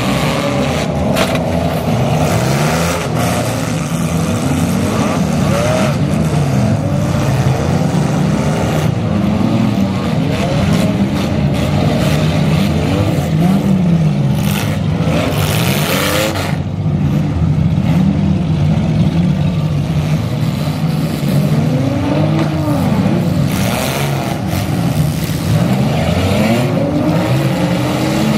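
Several compact-car engines revving up and down at once in a demolition derby, with sheet-metal crashes as the cars ram each other, several times over.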